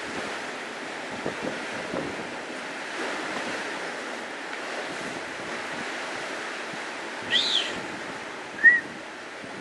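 Sea surf washing against rocks, a steady rushing with wind buffeting the microphone. Near the end two brief high-pitched chirps sound, the second the loudest.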